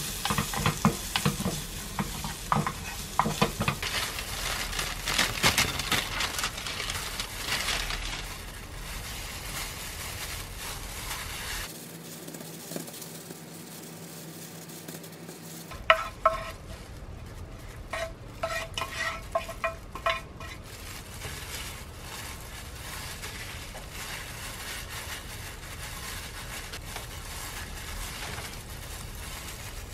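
Spatula stirring and scraping julienned carrots in a nonstick frying pan, with a light sizzle, for about the first eight seconds. Later come quieter handling sounds, with a few light knocks and short ringing clinks, while rice and fillings are laid on a sheet of nori for kimbap.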